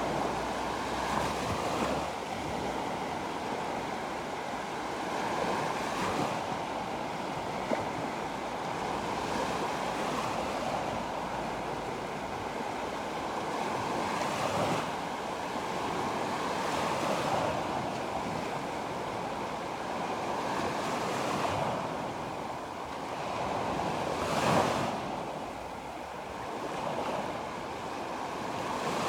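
Sea waves breaking and washing on the shore in a continuous surf, swelling every few seconds, the loudest about 25 seconds in, with some wind on the microphone.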